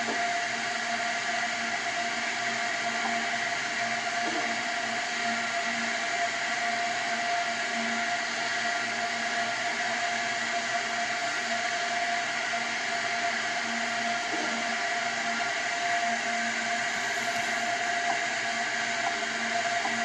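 Steady hiss with a few constant hum tones, one higher tone the most prominent, as of an open audio channel between call-outs. It holds unchanged throughout, with no distinct events.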